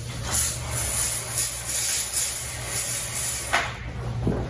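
Kärcher electric pressure washer running: a steady motor hum under a loud hiss of spraying water, with a few sharp knocks near the end.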